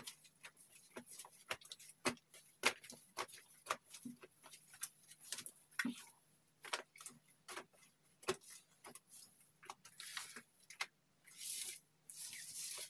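Hands squeezing and kneading fluffy slime made from clear slime and shaving foam, giving a quick run of sticky clicks and pops. In the last few seconds the squeezes turn into longer airy squelches.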